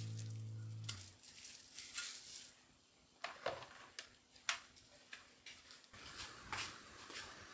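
A held music note dies away about a second in, followed by scattered light clicks and taps of objects being handled.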